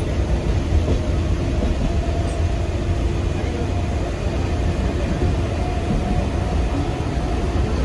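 Steady low rumble of a suburban electric local train running, heard from inside a crowded passenger carriage, with passengers' voices in the background.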